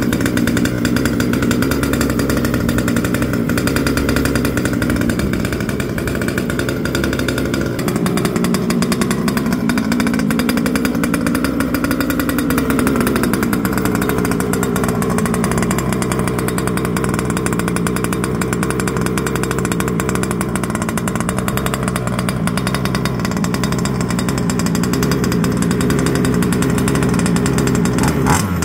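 Small two-stroke petrol engine of a 1/5-scale HSP RC truck running, its pitch shifting about eight seconds in and sliding down around twelve to fourteen seconds in. A sharp click comes near the end.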